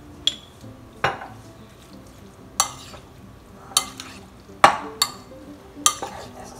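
Metal spoon clinking against a small glass relish jar and a ceramic mixing bowl while relish is spooned out and stirred into potato salad: about seven sharp, irregular clinks.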